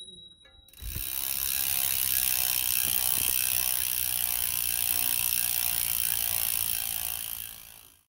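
Bicycle freewheel ratcheting as a rear wheel spins freely, a steady ratcheting sound that starts just under a second in and fades out near the end.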